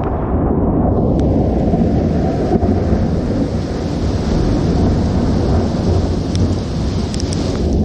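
Thunderstorm: a long, loud low rumble of thunder over heavy rain. About a second in, a hiss of wind-driven rain rises over it, then cuts off sharply near the end.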